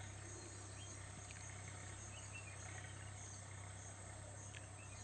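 Quiet background of steady, high-pitched insect chirring, typical of crickets, over a faint low hum.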